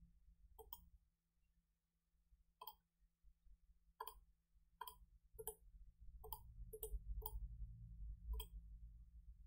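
Computer mouse buttons clicking about nine times at irregular intervals, with a faint low rumble underneath.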